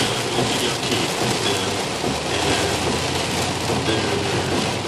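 Heavy rain pouring down in a steady, even hiss during a thunderstorm.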